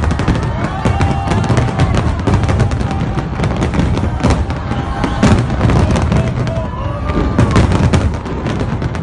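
Fireworks barrage: a rapid, unbroken run of bangs and crackling shell bursts, loud throughout.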